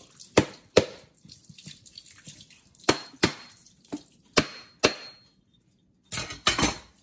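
The back of a bolo knife striking a whole coconut's shell: sharp knocks in pairs, one pair about every second and a half as the coconut is turned, then a quicker run of blows near the end as the shell cracks open.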